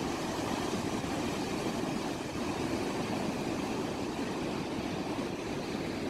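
Heavy storm waves surging and breaking against the foot of a seafront apartment building: a steady, low rush of churning surf.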